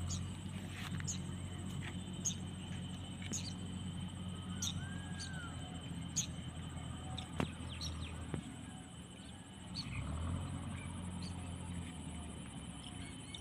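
Small birds chirping in short calls about once a second, over a low steady hum that drops away about eight seconds in, comes back briefly and fades near the end.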